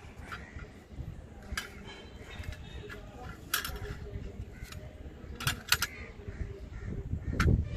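Kitchen knife cutting through dragon fruit on a plastic plate, with a handful of sharp clicks and clinks as the blade and metal cutlery knock against the plate, and a duller knock near the end.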